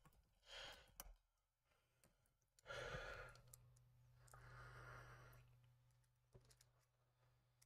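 Near silence with two soft sighing breaths from the model builder, about three and five seconds in, and a few faint clicks as the plastic model parts and a screwdriver are handled.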